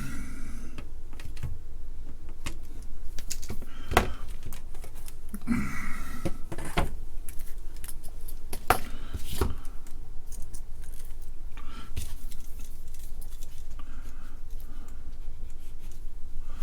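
Scattered small clicks and light metallic clinks of electronic components and hand tools being handled on a workbench, over a steady low hum.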